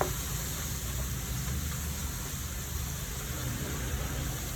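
Garlic frying in hot oil in a pan with a steady sizzle while it turns golden, with one short ringing tap right at the start.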